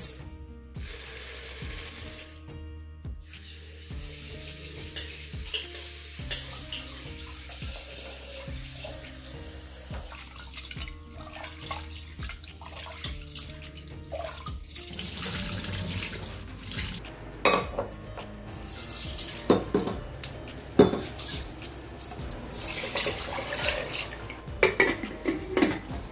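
Dry rice grains poured into a steel pressure-cooker pot with a hissing patter. A little later, water sloshes and splashes and steel clinks as the rice is rinsed by hand in a steel vessel at the sink.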